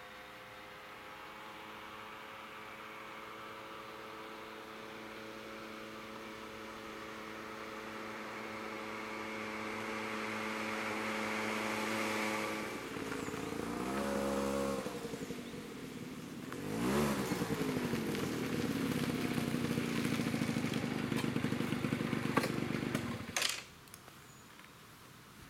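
Small moped scooter engine running as it approaches, its steady hum growing louder; around the middle the pitch swings down and back up twice as the scooter slows and pulls up. It then runs on steadily and is switched off, stopping suddenly near the end.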